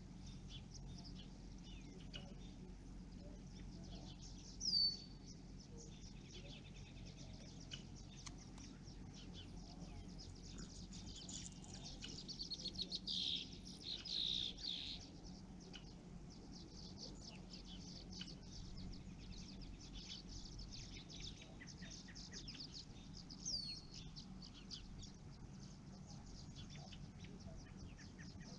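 Wild birds calling and singing: a few short, high, down-slurred calls spread through, and a run of quick repeated notes about halfway through that ends in two louder bursts, over a faint steady background.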